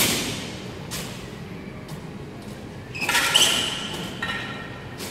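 Steel sword-and-buckler sparring: a sharp metal strike, then about three seconds in a quick flurry of clashes that ring, echoing in a large hall.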